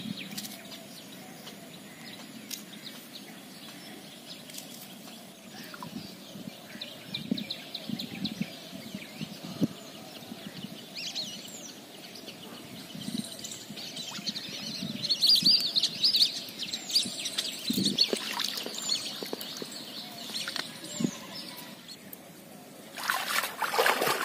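Birds chirping over a pond, with a stretch of rapid high twittering in the middle. Near the end, water sloshes loudly as someone wades through the shallow water.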